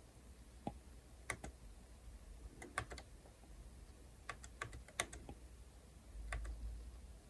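Stylus tip tapping and clicking on a tablet's glass screen during drawing strokes: about ten faint, sharp taps in irregular clusters.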